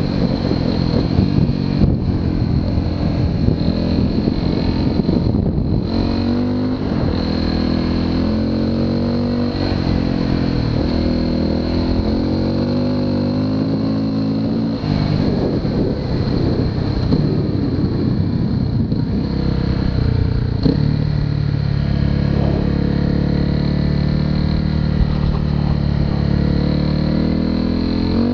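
Motorcycle engine running while riding, its pitch repeatedly rising and falling with throttle and gear changes. It holds a steadier, higher note for several seconds in the last third.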